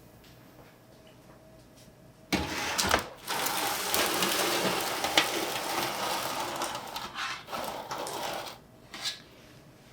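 Water running into a large pan to make a water bath for baking a cheesecake. A steady rush starts about two seconds in, breaks briefly, and cuts off near the end.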